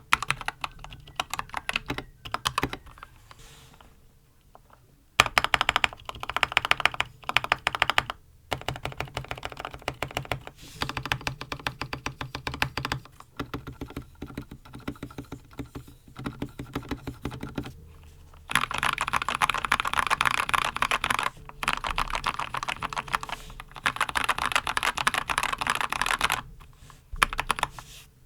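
Typing on a Red Dragon Kumara mechanical keyboard fitted with red switches and PBT Dolch-style keycaps, set on a desk pad. Runs of fast keystrokes, with a lull a few seconds in and a longer, louder run of fast typing in the last third.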